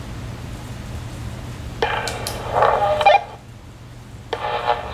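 Air conditioner running with a steady low hum; about two seconds in, a buzzing rattle rises over it for just over a second.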